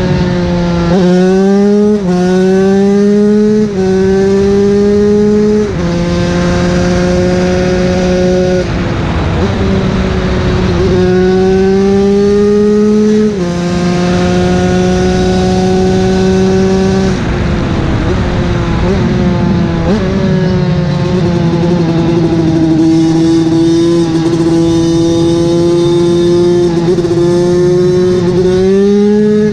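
TM SMR 125 two-stroke supermoto engine pulling hard at high revs. The pitch climbs and drops sharply at several gear changes, then holds nearly steady for long stretches.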